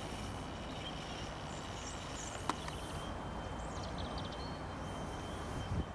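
Steady outdoor background noise with faint high chirps, and a single sharp click about two and a half seconds in.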